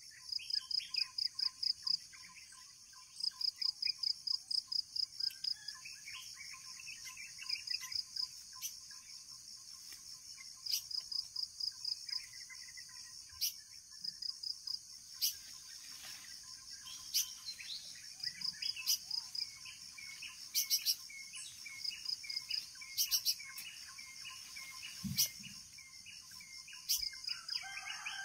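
Borneo forest insects and birds. Insects chirp in rapid pulsed trains about a second long, the loudest sound, over a steady high-pitched insect drone. Birds call throughout, one repeating a short note about twice a second in the second half, and there are a few sharp clicks.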